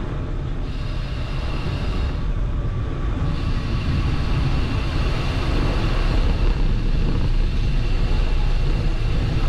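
Steady low rumble and hiss of riding a bicycle along the road, mostly wind on the microphone and tyres rolling, with a faint high whine that drops out for about a second around two seconds in and then comes back.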